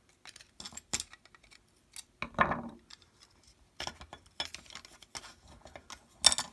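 Small parts of a disassembled folding knife clicking and clacking as they are handled and set down on a wooden bench, with a short scrape about two and a half seconds in and a sharper click near the end.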